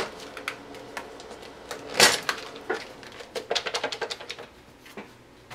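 Plastic food container, its snap-on lid and a paper plate being handled on a stove top: a brief scrape about two seconds in, then a run of light clicks and taps.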